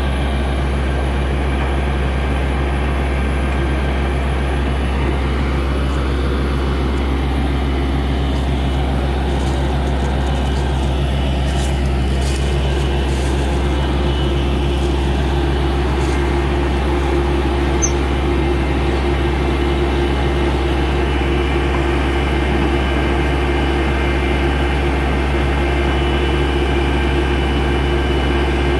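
Diesel engine of a truck-mounted water-well drilling rig running steadily with a deep hum, and a higher whine growing stronger about two-thirds of the way through.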